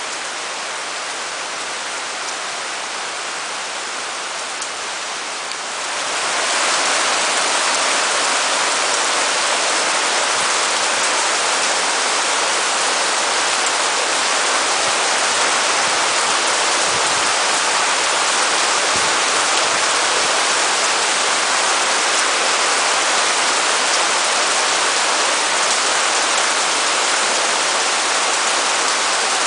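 Heavy rain pouring steadily as a dense, even hiss, growing louder about six seconds in and then holding.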